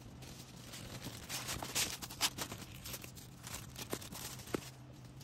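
Plastic packaging crinkling and rustling with sharp clicks and taps as an order is packed by hand, over a faint steady hum.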